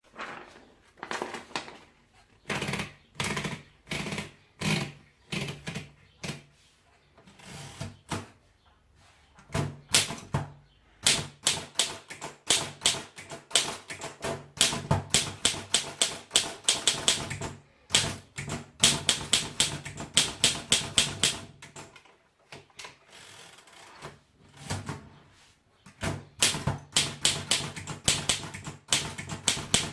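Underwood four-bank portable typewriter being typed on, its type bars striking the platen. The first few seconds hold slow, separate keystrokes. Then come runs of quick typing broken by short pauses.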